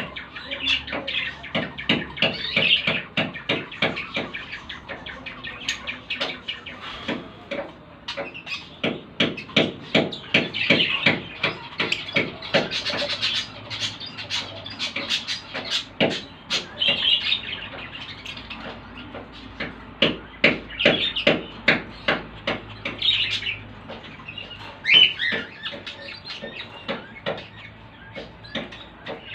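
Lovebirds chirping and chattering: a dense run of short, sharp high calls and clicks, with a single louder squawk near the end.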